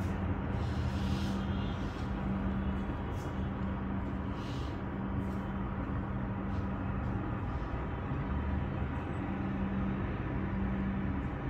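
A steady low hum over a constant rumble of background noise, briefly dipping a few times.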